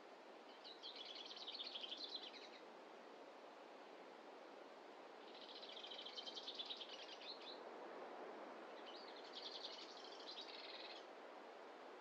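A songbird singing three high phrases of rapidly repeated notes, each about two seconds long and a few seconds apart, over a faint steady hush of forest ambience.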